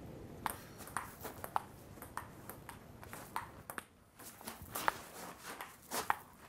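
Ping pong rally on a metal-topped table: a string of sharp, irregularly spaced ball clicks off paddles and table, each with a short ring, with a brief lull about four seconds in.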